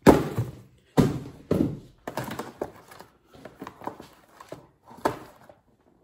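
A cardboard shipping box being opened and unpacked by hand: a sharp thump at the start and another about a second in, then a run of cardboard scrapes, rustles and knocks that stops shortly before the end.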